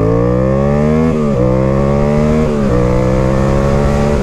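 Yamaha MT-07 parallel-twin, its SC Project exhaust de-baffled, accelerating hard. The engine note climbs through the gears, with two quick upshifts about a second in and again about two and a half seconds in, then climbs slowly again.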